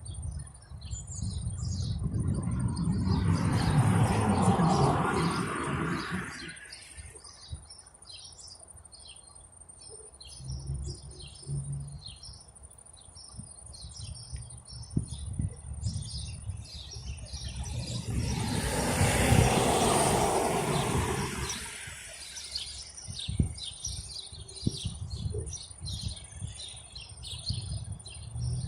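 Small birds chirping throughout, with two vehicles passing by on the street, one a few seconds in and another about two-thirds of the way through, each swelling up and fading away.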